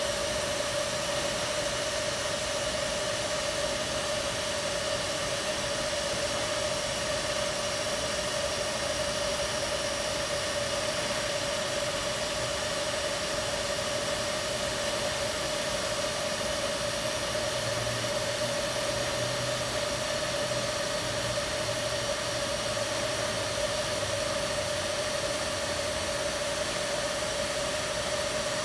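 A TIG welding arc on stainless steel runs steadily: an even hiss with a constant buzzing tone through it. It is an autogenous fusion weld, the inside corner of the joint being fused without filler rod.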